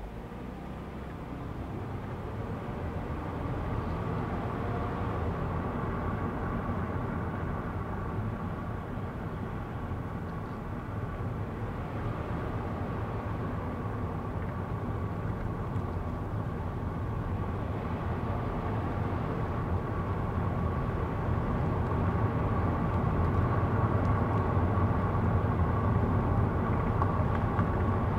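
Car driving along a road, heard from inside the cabin: steady engine and tyre rumble with a faint steady whine, gradually growing louder.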